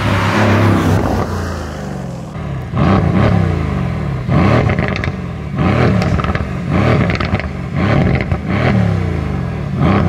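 Mercedes-AMG C63 estate's twin-turbo 4.0-litre V8 going past at speed, swelling and fading. Then, with the car at a standstill, it is revved in about ten short blips, with sharp cracks from the exhaust between some of them.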